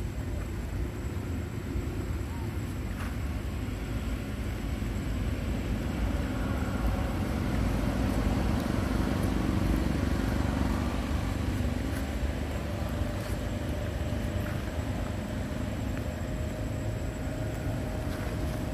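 A steady low rumble like a motor vehicle's engine running nearby, swelling and easing off in the middle, with a faint steady hum coming in during the second half.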